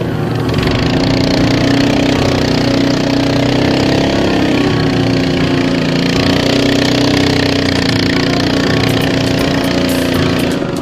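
Motorboat engine running steadily at speed, a constant mechanical drone pushing a long wooden boat upriver.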